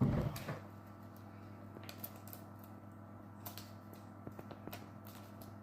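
A short knock at the start, then faint, scattered clicks and rustles of small plastic toy-kit pieces being handled.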